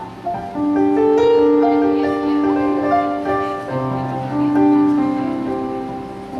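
Choir singing long held notes in harmony, with keyboard accompaniment.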